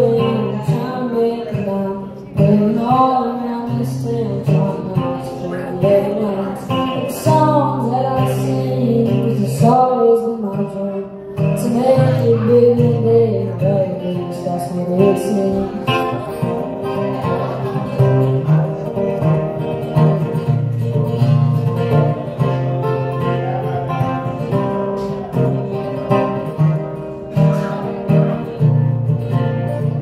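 A boy singing an original song into a microphone while playing an acoustic guitar.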